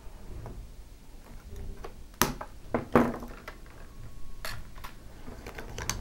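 Wire cutters snipping 16 gauge copper wire: two sharp clicks, about two seconds in and just before three seconds, among faint handling sounds and a few lighter ticks.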